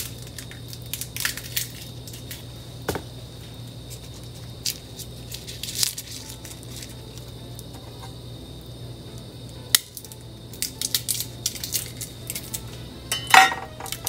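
Scattered clicks, taps and clatters of kitchen utensils and dishes being handled, over a steady low hum, with the loudest clatter near the end.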